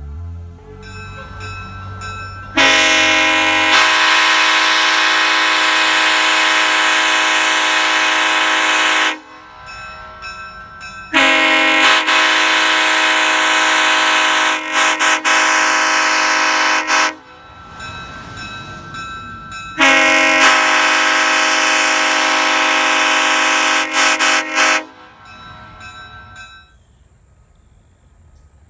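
Nathan Airchime K5LLA five-chime locomotive air horn sounding a steady, loud chord in three long blasts of about six seconds each. The second and third blasts break up into a few quick stutters near their ends.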